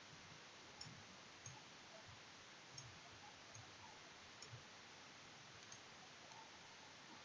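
Near silence: steady faint hiss with about half a dozen faint, irregularly spaced computer mouse clicks.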